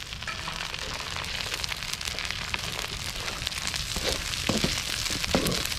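Diced potatoes and onions sizzling steadily in hot oil in a wok, with fine crackles throughout.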